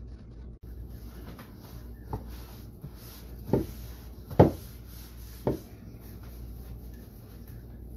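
Paper towels rubbing and patting against raw spare ribs as the meat is dried, with four knocks, the loudest about halfway through.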